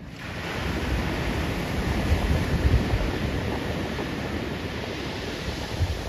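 Wind buffeting the microphone over a steady rush of breaking surf, starting abruptly at the outset; the gusty low rumble is the loudest part.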